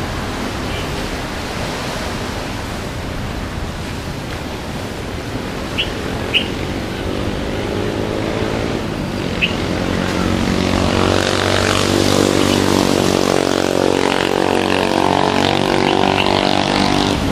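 Steady motor-traffic noise with an engine humming at a steady pitch, growing louder through the second half. Three short high chirps sound in the middle.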